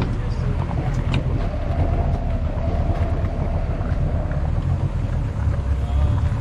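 Boat engine running steadily at low speed, with wind buffeting the microphone.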